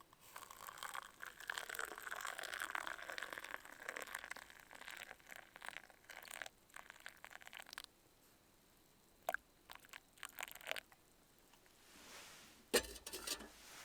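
Hot water poured from a camp pot into a mug of instant coffee for about six seconds, followed by scattered light clicks and knocks.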